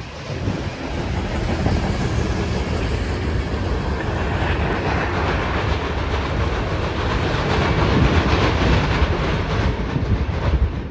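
Freight cars rolling past on the rails: a steady rumble with wheels clacking over the rail joints.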